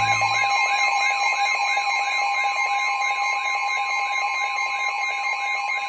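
Electronic emergency alert tone for a severe thunderstorm warning: steady tones with a warbling note over them that rises and falls about three times a second.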